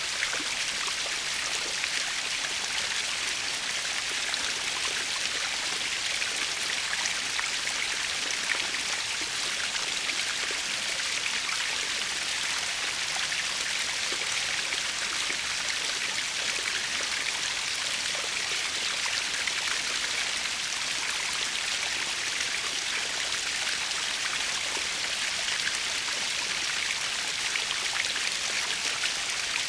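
Small natural waterfall splashing and rushing steadily, a constant hiss of falling water with fine splattering.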